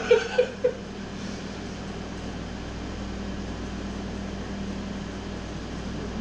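Steady machine hum with a low steady tone. Four short, loud blips in the first second.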